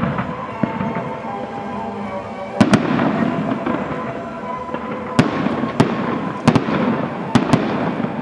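Aerial fireworks display: sharp bangs of shells bursting, about eight of them from a couple of seconds in, several in quick pairs, over a continuous crackling noise.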